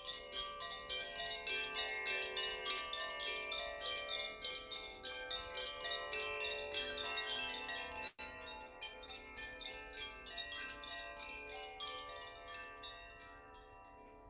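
Chimes struck in a rapid, irregular shimmer, several strikes a second over many overlapping ringing tones, thinning and fading out over the last few seconds, with a brief cutout about eight seconds in.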